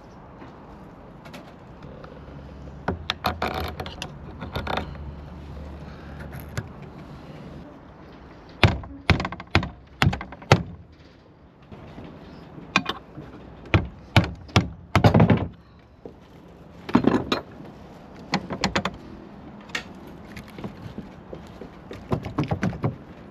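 Hand tools clinking and knocking on the metal parts of an anchor windlass as it is taken apart. A string of sharp knocks and clinks, thickest from about eight seconds in until near the end.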